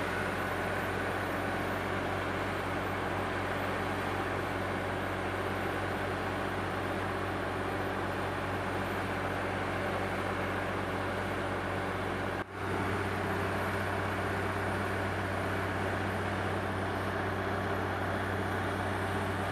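Truck-mounted water-well drilling rig running: a steady, loud engine drone with an even hum, broken by a momentary drop about twelve seconds in, after which it carries on slightly louder.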